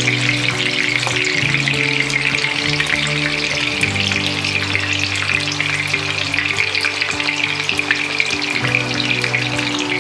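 Marinated milkfish (daing na bangus) deep-frying in hot cooking oil: a steady, dense sizzle with continuous fine crackling spatter.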